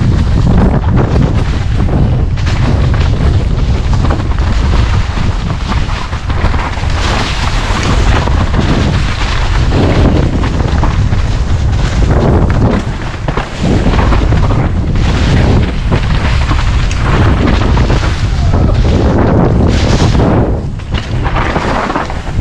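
Loud, continuous wind buffeting on the microphone, a deep rumble that rises and falls in gusts, with brief lulls about halfway through and near the end.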